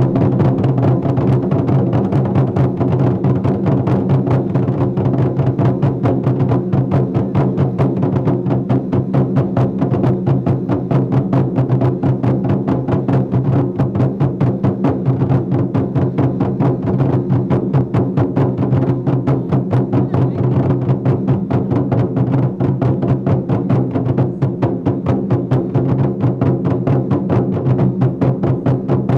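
A group of large Chinese barrel drums with tacked hide heads, beaten with sticks together in a fast, steady, unbroken rhythm, their deep booming resonance ringing under the rapid strokes.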